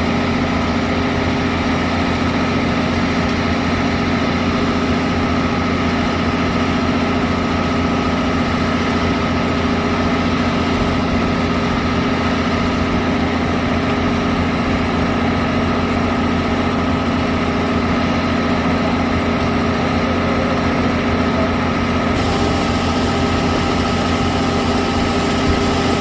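An engine running steadily at idle, an even, unchanging drone.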